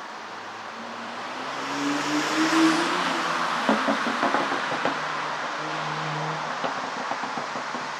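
Porsche Panamera 4's twin-turbo V6 revved once, its pitch rising to a peak, then dropping back to idle while the exhaust pops and crackles repeatedly on the overrun: the effect of a pop-and-crackle ECU tune.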